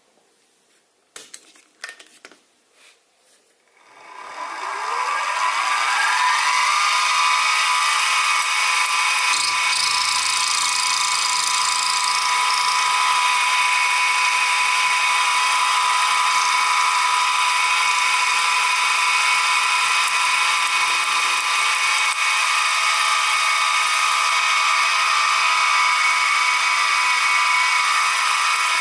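A few light clicks, then the Sieg SX2P mini mill's spindle motor starts about four seconds in. Its whine rises for a couple of seconds and then runs steadily while a small end mill cuts a slot in a brass crosshead.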